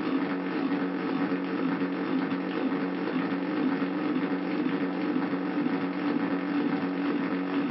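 Handmade Arduino drone noise synthesizer sounding a steady low drone of several held tones under a grainy, fast-flickering noise.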